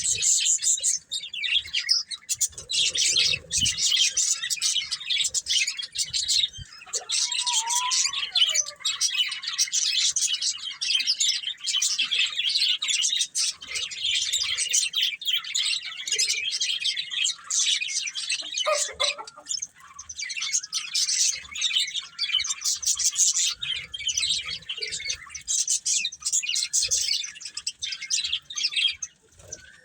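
Budgerigars chirping and warbling continuously, a dense run of rapid high chirps.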